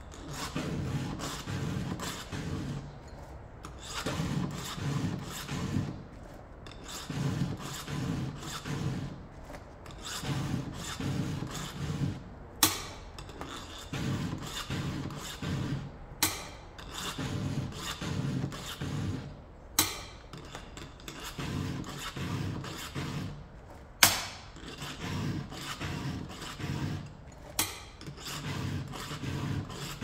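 A hand file drawn across the cutters of a chainsaw chain to sharpen it: bursts of three or four rasping strokes every two to three seconds, with a sharp click in several of the gaps between bursts.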